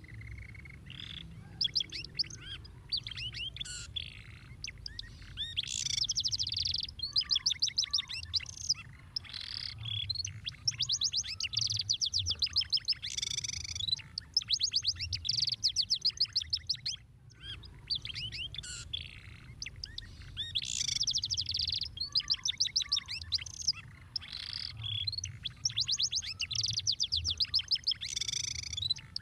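Domestic canary singing a long, fast song of rapid trills, rolls and chirped notes, with a short break about halfway through.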